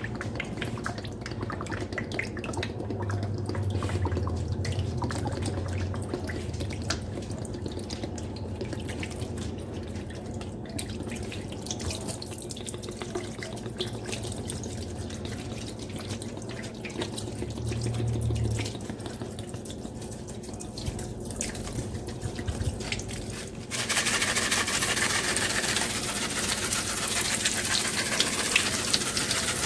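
Water dripping with small scattered wet clicks. About 24 s in, a steady hiss of running water starts suddenly and continues.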